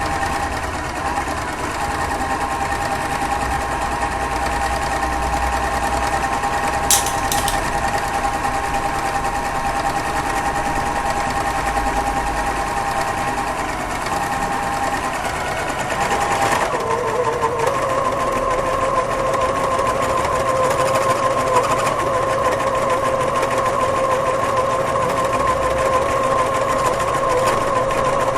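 Computerized embroidery machine stitching fabric, a steady fast mechanical whir of the needle drive. There is a brief sharp click about a quarter of the way in, and the pitch of the whir shifts a little past halfway.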